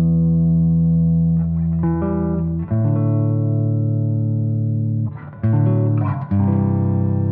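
Background music of long held notes that change pitch a few times.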